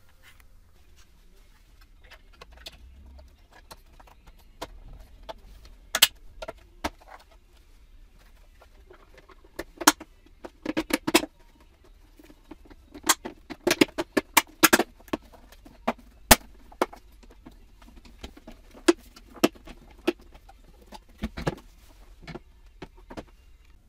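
Sharp plastic clicks and knocks as a clear headlight lens is handled and pressed onto a BMW E46 headlight housing, with a soft rubbing of plastic on plastic in between. The clicks come scattered, thickest in the middle, with one last cluster near the end.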